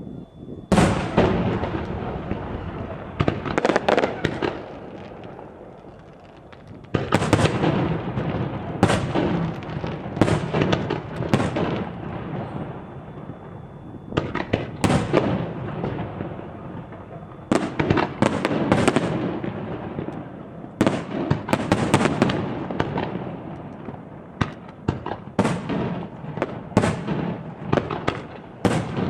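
Aerial fireworks shells bursting overhead: sharp booming bangs, some alone and some in rapid clusters of several, each trailing off in a long rolling echo.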